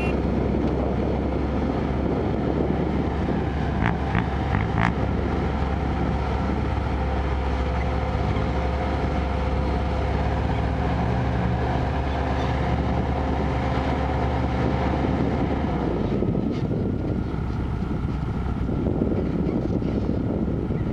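Diesel engine of a Kobelco excavator running steadily, with a few sharp knocks about four to five seconds in. The engine note changes about sixteen seconds in.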